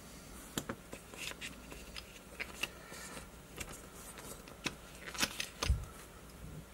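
Plastic coin capsules being handled in a coin presentation case: a run of small sharp clicks and scrapes as a capsule is worked out of its slot in the insert, with a dull thump near the end.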